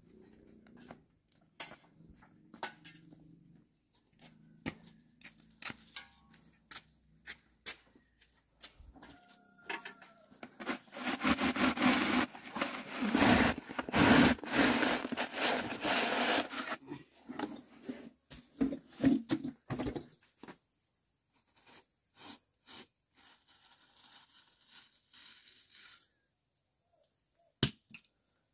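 A bucket set into a freshly cast cement stove top being twisted and worked loose, making several seconds of loud grinding scrape against the wet cement, with scattered small taps and clicks before and after.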